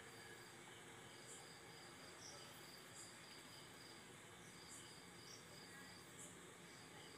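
Faint crickets: a steady high trill that breaks off briefly now and then, with a shorter higher chirp about every one and a half seconds, over faint background hiss.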